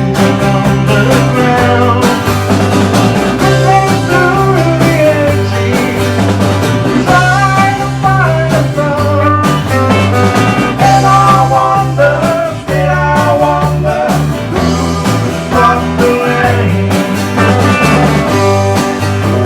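A rock song played on acoustic guitar over a steady bass line, with a melody line above it that bends in pitch.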